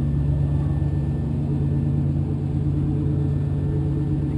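Riverboat engine running steadily: a constant low drone with no change in speed.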